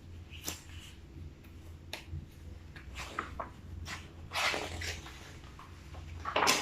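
Picture-book pages being handled and turned: a few soft clicks and short papery rustles, the loudest near the end, over a low steady hum.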